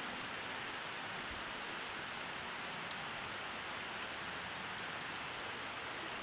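Steady, even background hiss with no distinct sound events, apart from one faint tick about three seconds in.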